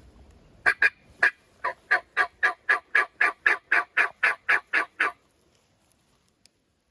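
A loud run of about seventeen turkey yelps, evenly spaced at roughly four a second, lasting about four and a half seconds before stopping.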